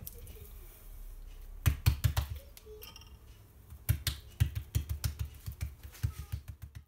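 Hand patting folded msemen dough flat on a countertop: a quick burst of soft pats about two seconds in, then a longer, uneven run of pats from about four seconds in until near the end.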